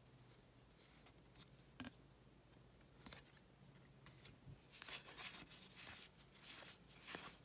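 Faint rustling and sliding of baseball cards as they are flipped through by hand and laid down on a table, with a few soft swishes that come more often in the second half.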